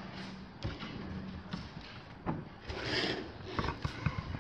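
Faint handling sounds of foam-wrapped kitchen cabinet units: a few light knocks and a short rustle of foam sheeting about three seconds in.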